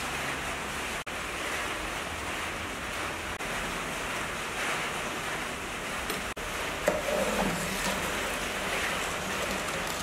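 Steady rushing hiss of a portable gas stove burner under a steel pot of water. About seven seconds in there is a single sharp knock, as the metal ladle hits the pot while stirring.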